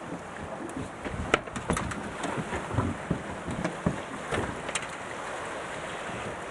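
Water and wind noise aboard a small fishing boat on a river, with scattered sharp clicks and knocks between about one and five seconds in.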